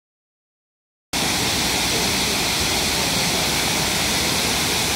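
Steady rushing of a large waterfall, starting abruptly about a second in after silence.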